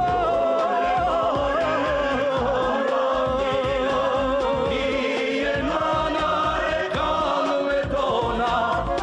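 Male singer holding long notes with vibrato in an Albanian song, over a live orchestra accompaniment.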